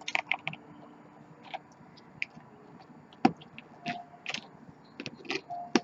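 Plastic Lego bricks and a flexible Lego baseplate mat being handled, giving scattered, irregular light clicks and taps.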